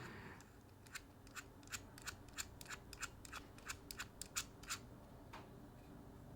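A run of faint, irregular small metallic clicks, about four a second for several seconds, as a bit driver backs out the loose pivot screw of a Benchmade 698 Foray folding knife.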